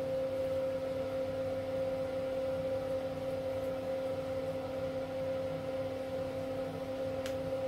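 A steady hum of two clear tones, one about an octave above the other, over a faint hiss.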